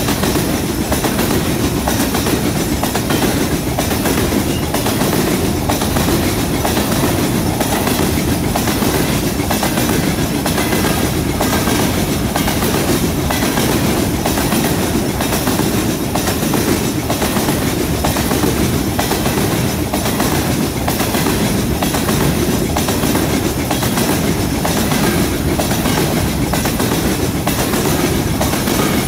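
Covered hopper cars of a long freight train rolling past: steady noise of steel wheels on the rails, with repeated clickety-clack as the wheels cross rail joints.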